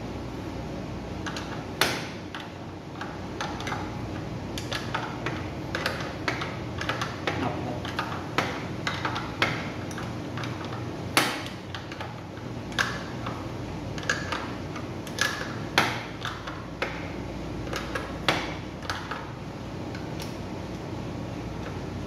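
Irregular metal clicks and clinks of an adjustable wrench being handled and fitted onto an electric scooter's rear axle nut, with a few louder knocks.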